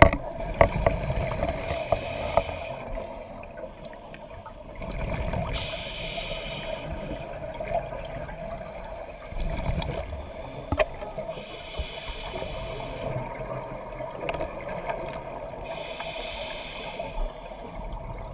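Scuba diver breathing through a regulator underwater: low bubbling gurgles of exhaled air alternating with the hiss of inhaling, about every five seconds, over a steady hum.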